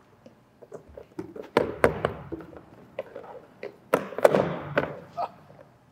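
Metal-legged plastic stacking chair being set down and shuffled into place on a hard gym floor: a series of knocks and thuds, in one cluster about a second and a half in and another about four seconds in, each with a short echo.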